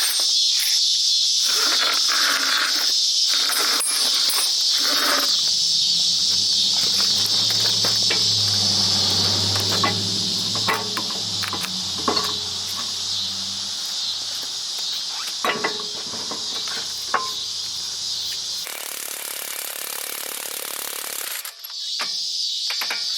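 Steady, high-pitched insect chorus that drops out abruptly near the end and comes back just before the close, with a low hum through the middle and a few sharp clicks.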